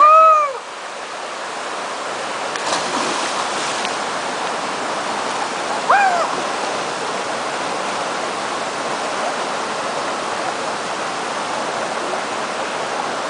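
Waterfall: a steady rush of falling water. Short arched high-pitched calls stand out over it at the start and again about six seconds in.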